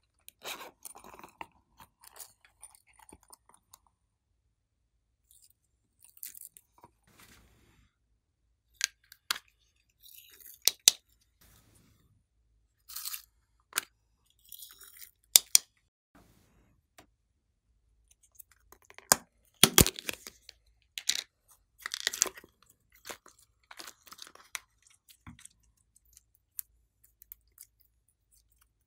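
Small plastic cases clicking and snapping as they are handled and opened over a tray of slime, with short crackling, rustling bursts from the slime and foam beads. The sounds come in scattered groups with silences between, the busiest stretch about two-thirds of the way through.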